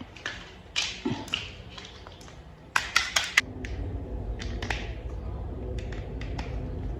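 Hard plastic toy parts being handled and snapped together: scattered sharp clicks and taps, with a quick run of loud clicks about three seconds in. A low steady hum joins about halfway through.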